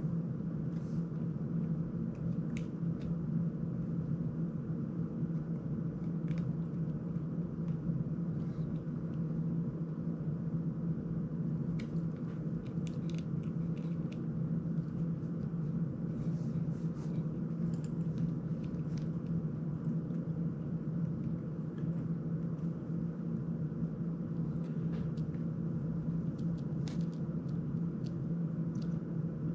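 Steady low hum of room background noise, with faint scattered clicks and taps of small plastic and metal drone parts being handled.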